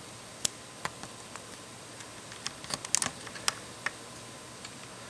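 Small plastic LEGO pieces clicking as 1x1 round plates are stacked and snapped onto a brick assembly. A dozen or so sharp clicks, a few spread out at first, then a quicker run from about two and a half seconds in.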